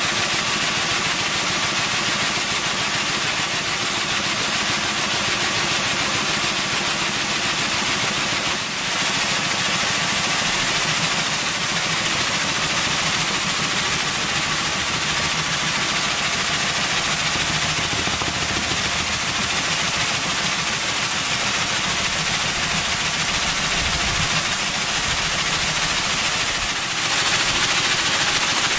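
Pressure washer spraying water through a mechanical swing nozzle: a steady, dense hiss of spray over the machine's motor hum, with a brief dip about nine seconds in.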